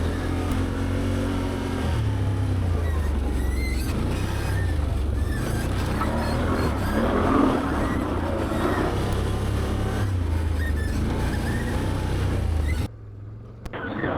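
Can-Am Outlander 850XT ATV's V-twin engine running under way on a dirt trail, its pitch rising and falling with the throttle. Near the end the sound drops away abruptly for about a second, then returns.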